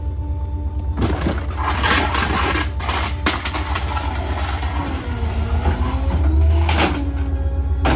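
Rear-loader garbage truck's engine and hydraulic packer running under load: a steady low rumble with a hum whose pitch sags about five seconds in and recovers near the end. There is crunching, scraping noise in the first half.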